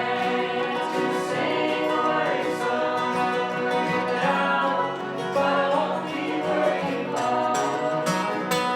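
Bluegrass ensemble playing a song, voices singing together over acoustic guitar and other strings.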